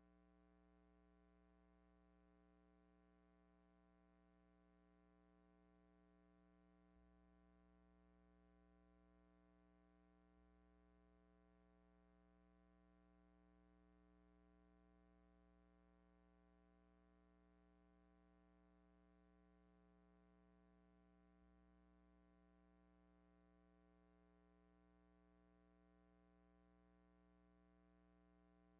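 Near silence with a faint steady hum.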